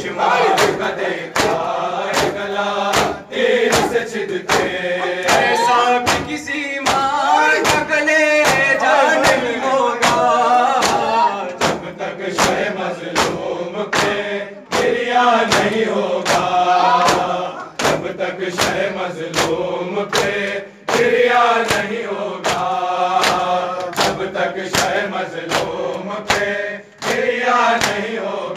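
Male reciters chanting a noha, an Urdu mourning lament, through a microphone, with the crowd singing along. Under the voices runs steady matam: open hands beating chests in unison, about one and a half strikes a second.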